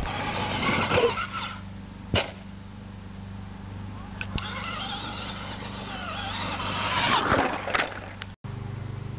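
Electric motor of a Traxxas radio-controlled truck whining as it speeds up and slows down, rising and falling in pitch twice. A sharp knock comes about two seconds in.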